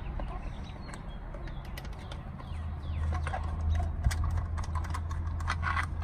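Irregular small clicks and ticks of a screwdriver working the screws of an American gas meter's module cover, with a denser run of plastic clicks near the end as the cover is lifted off. A steady low hum runs underneath.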